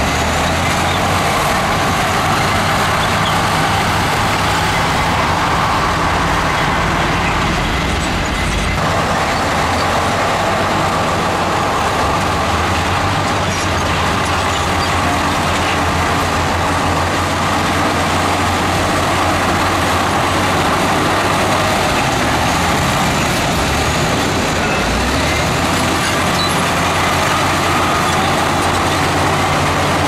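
Heavy diesel construction machinery running steadily at a worksite. The low engine note shifts about a third of the way in and again near the end.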